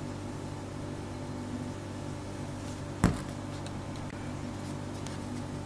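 Steady low mechanical hum in a quiet kitchen, with a single sharp click about three seconds in.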